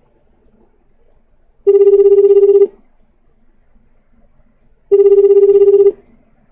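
Telephone ring tone sounding twice, each a loud rippling tone about a second long, about three seconds apart.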